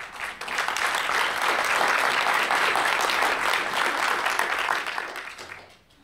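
Audience applauding: the clapping builds about half a second in, holds steady, and dies away near the end.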